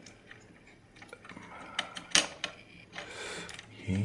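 Small precision screwdriver backing out the tiny Wi-Fi card mounting screw on an Intel NUC motherboard: scattered light metallic clicks and a short scrape, with one sharp click about two seconds in.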